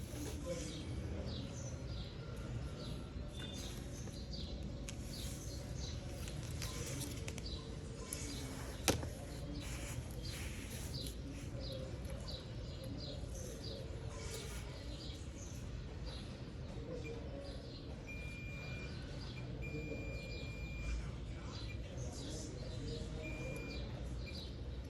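Small birds chirping repeatedly over a steady low background hum, with one sharp click about nine seconds in and a few short held high tones near the end.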